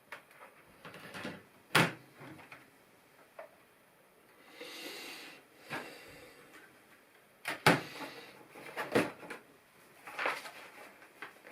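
Plastic LEGO pieces clicking and knocking as they are handled and pressed together, several sharp clicks spread through, with a brief rustle about five seconds in.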